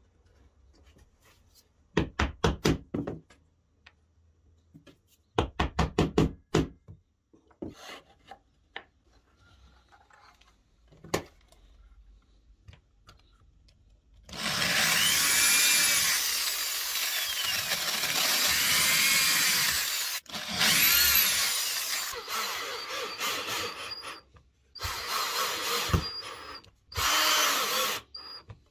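Cordless drill boring holes in a plywood plate, running in long bursts with its motor speed rising and falling, after two short runs of rapid clicks.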